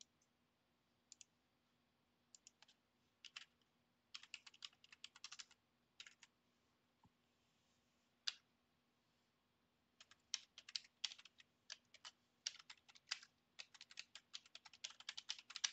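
Computer keyboard typing: a few scattered clicks at first, then short bursts of keystrokes from about four seconds in, and a quicker, busier run of typing from about ten seconds on.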